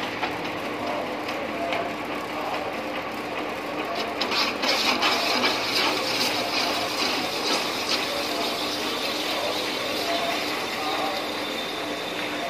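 Metal lathe running with its cutting tool turning a large spinning metal disc: a steady machine hum under a hiss and crackle of the cut, which grows louder about four seconds in.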